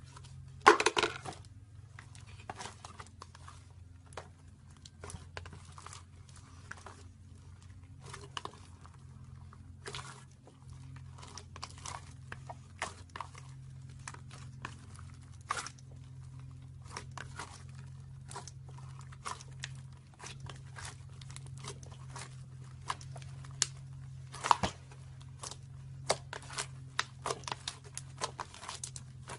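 Slime being handled: irregular sticky pops, crackles and clicks, with louder crackling bursts about a second in and again around 24 seconds in, over a steady low hum.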